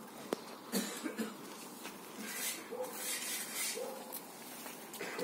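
A dog sniffing and snuffling at a very young kitten in short noisy bursts, with a few brief faint mews from the kitten near the middle.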